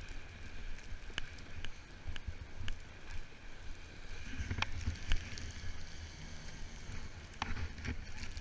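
Blizzard wind buffeting the camera's microphone in an uneven low rumble, with scattered sharp clicks and crackles throughout.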